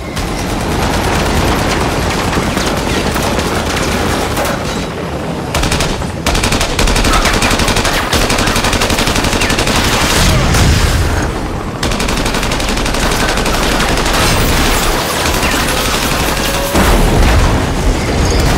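Action-film sound mix of sustained rapid automatic gunfire, with heavier booms about halfway through and again near the end.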